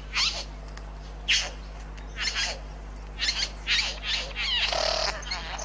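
Male satin bowerbird calling during its courtship display: a series of short calls about once a second, crowding into a denser run of calls near the end.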